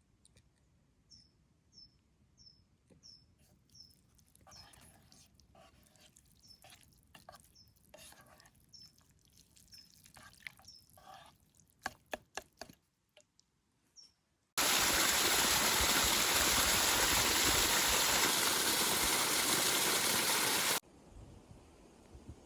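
A small bird calls faintly, about two short high chirps a second, with scattered clicks and rustles. About fourteen seconds in, a loud, steady rush of flowing water cuts in for about six seconds, stops abruptly, and leaves a quieter hiss.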